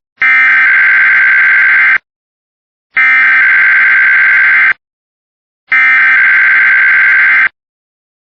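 Emergency Alert System SAME header: three identical bursts of digital data tones, each nearly two seconds long, separated by about a second of silence. They are the coded header that opens an EAS alert, here a Required Weekly Test.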